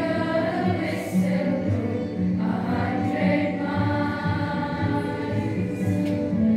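A choir of schoolgirls singing a song together, holding long notes.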